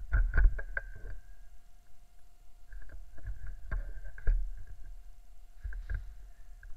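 Rubbing and bumping handling noise on a small camera mounted on an airsoft rifle, with a quick cluster of sharp clicks and knocks in the first second and a couple more single knocks a few seconds later.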